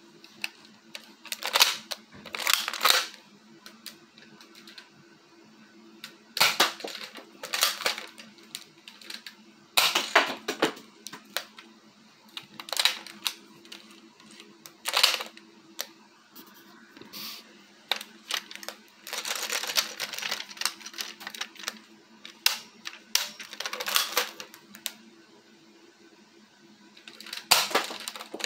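Scattered sharp clicks and knocks, some in quick pairs, from handling a Nerf Maverick toy blaster and setting plastic water bottles on a small table. A faint steady hum runs underneath.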